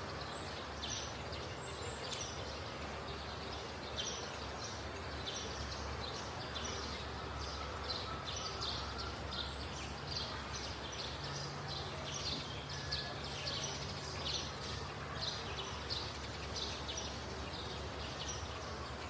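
Outdoor ambience: a steady low hum and background noise, with short high chirps repeating irregularly, about two a second.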